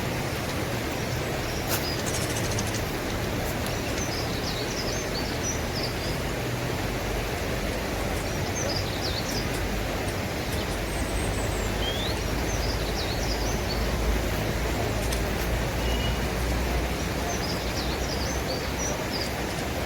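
A bird sings short chirping phrases every four or five seconds over a steady rushing outdoor noise.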